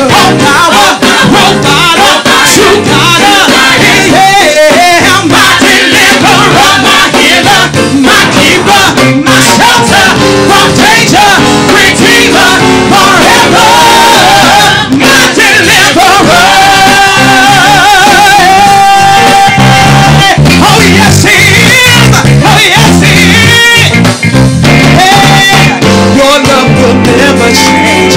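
Live gospel praise-and-worship music: a singer with a wavering vibrato over a band, with one long held note about two-thirds of the way through.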